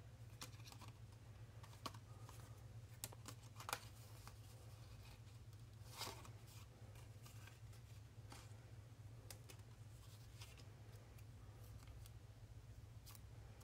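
Near silence: a steady low hum with a few faint ticks and rustles of small objects being handled.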